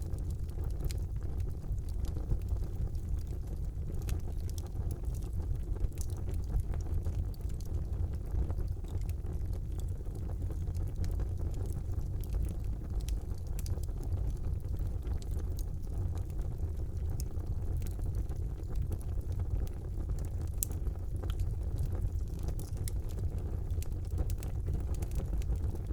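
Wood fire burning in a fireplace: a steady low rumble of the flames with sharp crackles and pops scattered irregularly throughout.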